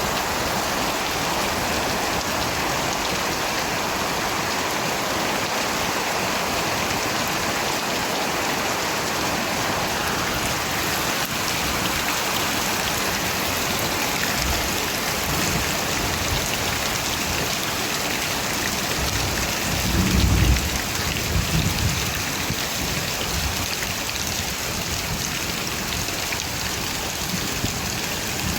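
Steady, dense rainfall, with a low rumble of thunder rolling in about two-thirds of the way through.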